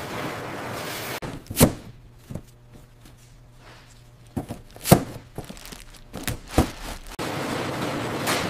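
About six irregular dull thuds and knocks over a quiet stretch, the loudest about a second and a half in and near the middle. They sit between stretches of steady hissing background noise that cuts off about a second in and comes back near the end.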